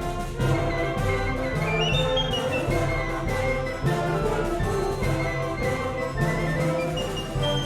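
Concert wind band playing, full ensemble with brass. Sharp accented attacks come about half a second in, near four seconds and just after six seconds, and a quick rising run of high notes sounds about two seconds in.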